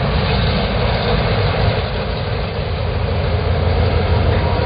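Diesel freight locomotives passing close by, their engines running with a steady deep rumble.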